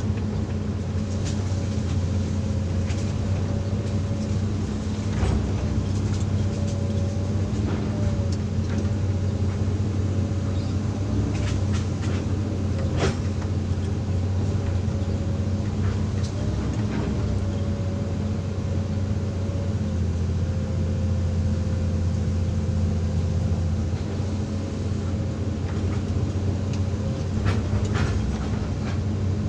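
Hydraulic excavator's diesel engine running steadily under load, with a wavering whine over the hum and scattered clanks, the sharpest about 13 seconds in.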